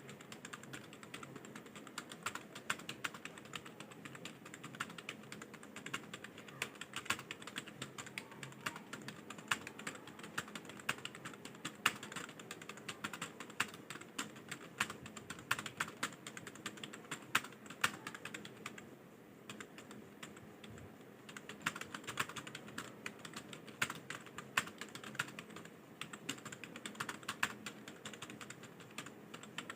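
Rapid typing on a computer keyboard, a continuous run of key clicks during an English speed-typing test, with a short pause about two-thirds of the way through.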